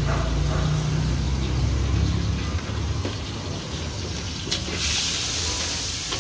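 Street-stall noise: a vehicle engine running low and steady for the first couple of seconds, then a sharp click and a steady hiss that starts about five seconds in.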